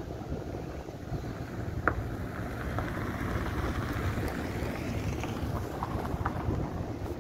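Wind blowing across the phone's microphone as a steady low rumble, with a sharp click about two seconds in and a few faint ticks later.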